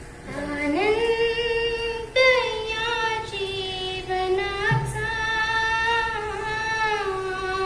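A young girl singing solo, sliding up into a long held note and then carrying a slow melody of long sustained notes.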